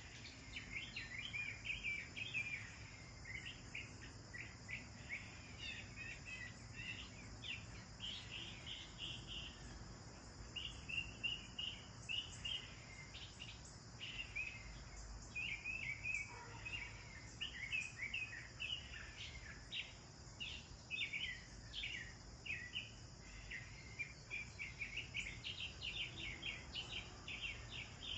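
A flock of house sparrows chirping busily and continuously, many short overlapping chirps, over a steady high-pitched hum of insects.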